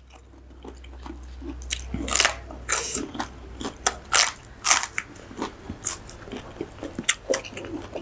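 Close-miked crunching and chewing as raw okra pods are bitten into, a run of irregular crisp bites with wet mouth sounds.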